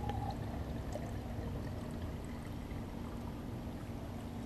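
Red-dyed water poured in a steady stream from a glass jug into a hand-made clay pot, splashing into the liquid as the pot fills, over a low steady rumble.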